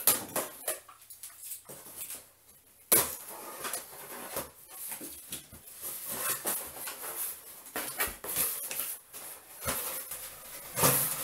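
Cardboard shipping box being opened by hand: packing tape cut and pulled, flaps scraping and bending open, with one sharp crack about three seconds in. Crumpled paper packing rustles near the end as the flaps are spread wide.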